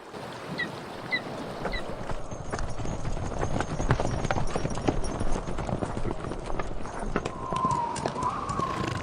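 Horse hooves clip-clopping, a dense patter of hoofbeats that thickens from about two seconds in. Three short high chirps come in the first two seconds, and a wavering high tone starts near the end.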